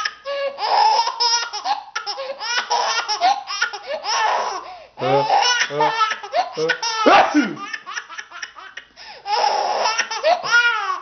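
An 11-month-old baby laughing hysterically: long runs of high-pitched belly laughs one after another, with short pauses for breath between the fits.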